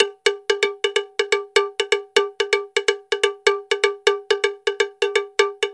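A rhythmic run of short, ringing metallic percussion strikes, about four a second, each with the same bright pitch.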